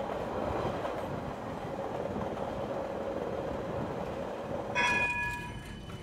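Passenger train running, heard from inside the carriage: a steady rumbling ride noise. Near the end a brief high tone at several pitches sounds for about a second.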